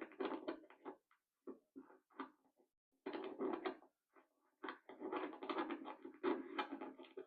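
Rapid clicking and rattling from the internals of an EVVA MCS magnetic-rotor lock as it is worked with picking tools, heard through a small amplifying speaker. The clicking comes in three runs, the longest near the end.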